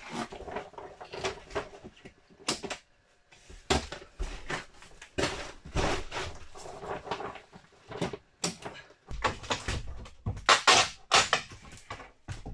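Old wooden boards being pulled loose and shifted about: irregular knocks, scrapes and clatters of wood, with a crowbar working near the end. The knocks are louder and come thicker in the last few seconds.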